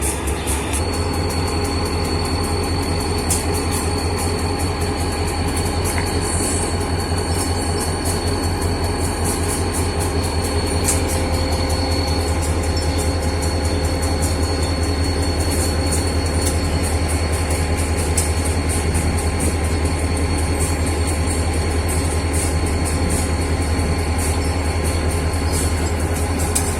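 EMD SD40-3 diesel locomotive's turbocharged two-stroke V16 (16-645-E3) engine running steadily with a deep throb. A thin, high steady whine sets in about a second in.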